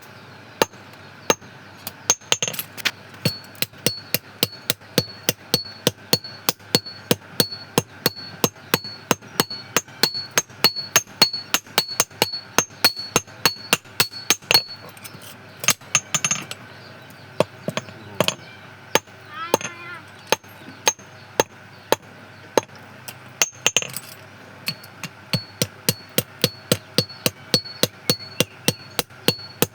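Blacksmith's hammer striking metal on an anvil in a steady rhythm of about two to three blows a second, each blow with a short high ring. The hammering thins out for a few seconds past the middle, then resumes.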